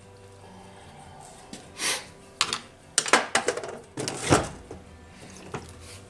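Irregular clicks and clattering knocks of hard parts and tools being handled during a chainsaw repair, bunched in a quick run from about a second and a half to four and a half seconds in.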